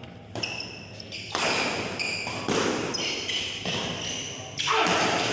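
Badminton doubles rally: sharp, irregular racket hits on the shuttlecock and short high squeaks of shoes on the court floor, with a louder stretch of noise near the end.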